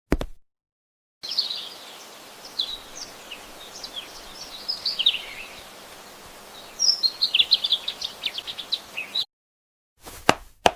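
Birds chirping, many short falling chirps in quick succession over a faint steady hiss; the birdsong starts about a second in and cuts off abruptly near the end. A short click comes at the very start, and two sharp knocks come in the last second.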